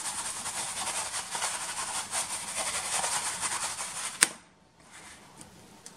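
Breadcrumbs rattling and rustling in a plastic tub as a bitterbal is shaken and rolled through the coarse crumb coating, a dense gritty hiss for about four seconds that ends in one sharp knock.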